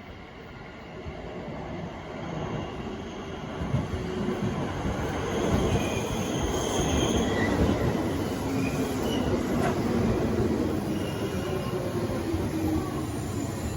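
A JR Central 311-series electric train pulling into the station platform. It grows louder over the first five or six seconds, then runs on steadily with rail rumble and thin, high wheel and brake squeals.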